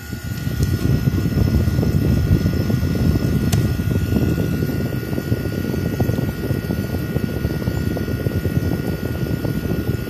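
A 2002 Whirlpool 5000 BTU window air conditioner running, with its air flow buffeting the microphone: a loud, rough low rumble with a faint steady whine above it. The owner finds the fan weak and slow, even after a capacitor swap.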